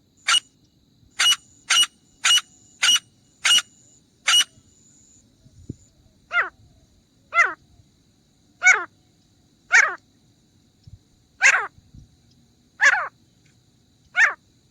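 Grey francolin calling: a quick run of seven short, sharp notes, then slower, longer calls that fall in pitch, about one a second.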